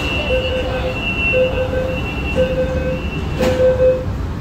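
Metro train door-closing warning beeper, repeating steady beeps about once a second, each about half a second long, over the low hum of the carriage. A sharp knock comes about three and a half seconds in as the doors shut.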